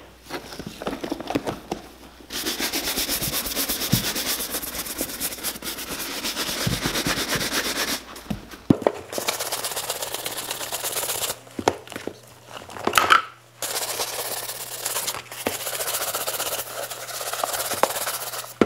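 Horsehair shoe brush swept rapidly back and forth over the leather uppers of a cowboy boot to knock off surface dust: fast scratchy brushing in several long runs with short pauses between.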